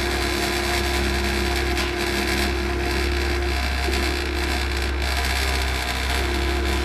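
CNC milling machine running with its rotary-tool spindle spinning: a steady buzzing whir over a low hum, with a mid-pitched whine that breaks off and restarts twice.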